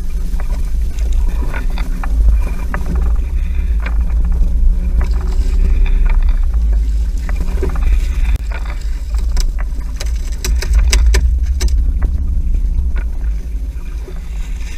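Steady low rumble aboard a small open fishing boat at sea. About two-thirds of the way through comes a run of sharp knocks and slaps as a dorado is hauled in over the side and landed on the deck.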